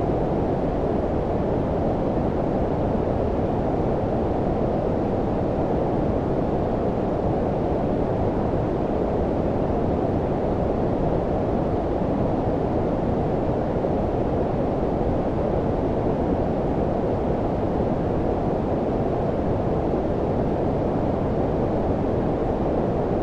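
Steady low-pitched synthetic noise, a deep unchanging rumble-hiss like brown noise, with most of its weight below about 1 kHz and little top end.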